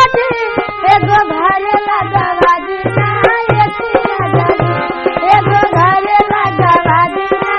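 Background music: an Indian-style melody with tabla drums keeping a steady beat.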